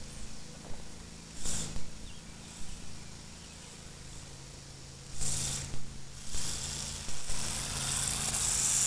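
Electric RC car with drift tires sliding across asphalt: short bursts of hissing tire scrub every few seconds, building louder near the end, over a low steady hum.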